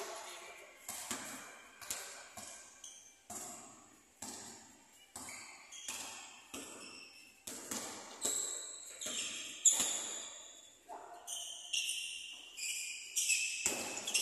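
A basketball dribbled on a gym court, each bounce echoing briefly in the hall, coming about once every half second to a second. In the second half, sneakers squeak on the court floor.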